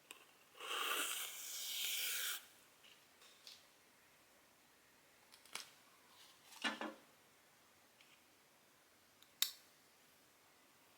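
Cross-stitch handling sounds: a rustle lasting about two seconds near the start, then a few light clicks and taps, with one sharp click near the end.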